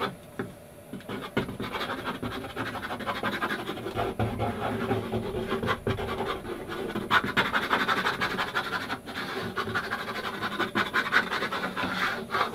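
Scratchy rubbing of super glue being spread over masking tape on a board, in many quick back-and-forth strokes, growing a little louder in the second half.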